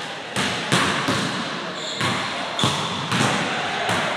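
Basketballs bouncing on a hardwood gym floor: about six irregular thuds, each ringing on in the echo of the large hall.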